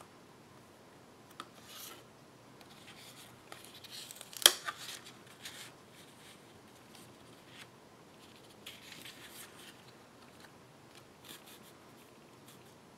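Sheets of card stock and patterned paper being handled and slid against each other: light rustling and scraping, with one sharp snap about four and a half seconds in.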